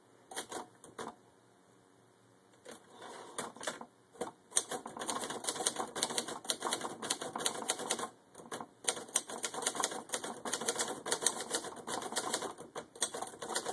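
Hermes 3000 manual portable typewriter being typed on. A few keystrokes, a short pause, then a fast, steady run of type-bar clacks from about four seconds in. There is a rattle in the machine that the typist noticed.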